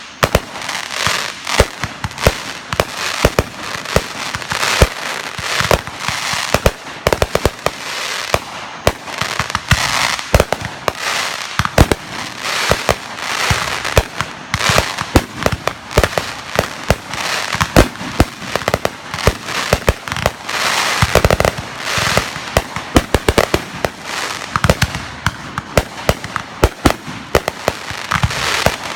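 Fireworks going off in a continuous barrage: rapid sharp bangs one after another over steady crackling, with no let-up.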